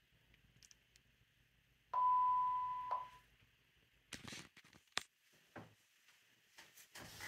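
A single electronic beep, one steady tone lasting about a second, followed a little later by a few soft clicks and handling rustles.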